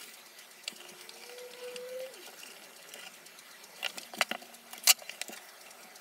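Light clicks and taps of a metal M.2 heatsink and SSD being handled and pressed together on a desk. There is a cluster of sharp clicks between four and five seconds in, and a faint rising tone early on.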